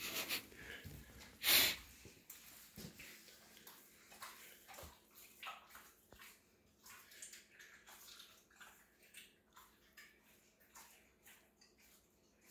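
German Shepherd licking and chewing a raw T-bone steak on a tile floor: an irregular string of small wet smacks and clicks, with one louder smack about a second and a half in.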